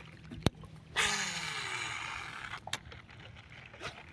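Baitcasting reel's spool whirring during a cast, the whir starting suddenly about a second in and falling in pitch as the spool slows over about a second and a half. A sharp click comes just before it, and a few lighter clicks follow near the end as the reel is handled.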